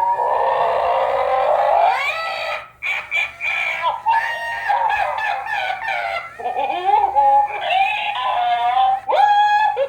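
Electronic toy noises: high, warbling pitched squawks and chirps that keep gliding up and down and breaking off.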